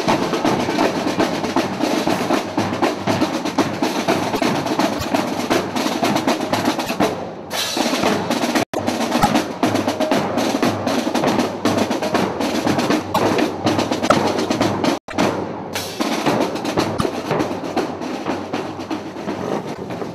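Parade drumming: snare and bass drums playing fast, steady strokes, broken by two abrupt cuts partway through.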